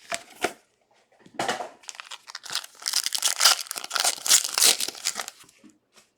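Plastic wrapper of a trading card pack being torn open and crinkled, in a run of crackly rustles that is loudest in the middle and dies away near the end.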